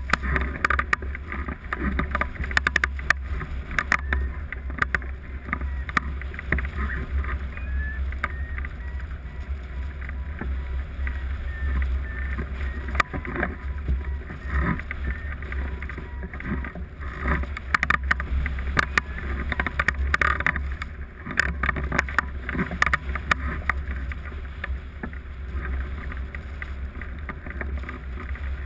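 Airflow rushing and buffeting over the microphone of a camera mounted on a hang glider in flight: a steady low rumble with frequent crackling gusts.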